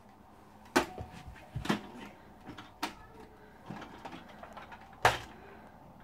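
Hard plastic knocks and clacks from a toy Henry vacuum cleaner being handled and its black head pulled off the red body: about five sharp knocks spread out, the loudest about five seconds in.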